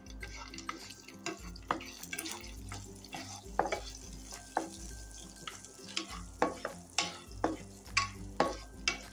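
A slotted wooden spatula stirs and scrapes cashew pieces around a nonstick frying pan, with many sharp clicks of spatula and nuts against the pan over a light sizzle of the cashews roasting in ghee.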